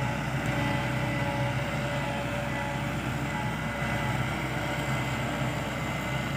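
Heavy excavator's diesel engine running steadily, with a faint steady whine above it.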